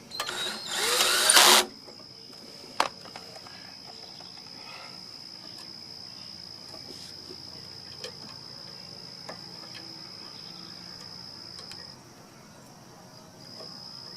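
Cordless drill running for about a second and a half, its pitch rising, driving a screw to mount a switch; a single sharp click follows.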